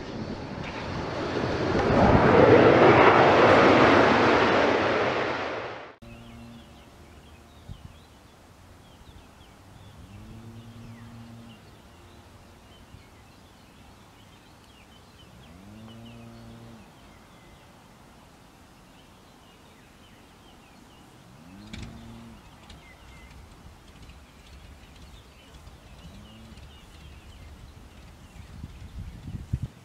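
A loud rushing noise swells over about two seconds, holds, then fades and cuts off suddenly about six seconds in. After it comes a quiet outdoor background with faint bird chirps and a few short low calls that rise and fall in pitch.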